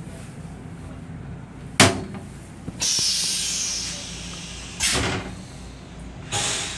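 A sharp knock as the toilet seat is raised against the wall, then the stainless-steel railcar toilet flushing: a loud hissing rush that fades over a second or two, followed by two shorter whooshes.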